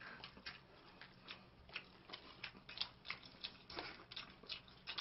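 Faint, irregular clicks and smacks of people eating pizza, a few each second.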